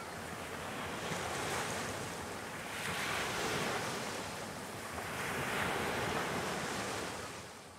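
Small waves breaking and washing up onto a sandy beach, surging twice and fading out near the end.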